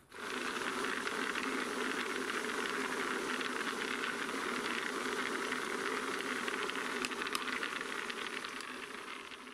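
Small round firework stars tumbling in a spinning star-rolling drum: a steady hissing rush with fine rattling. It starts abruptly and fades a little near the end.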